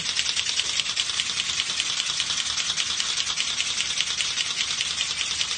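Goat milking machine pulsators clicking in a rapid, even rattle, like a machine gun, over a steady hiss.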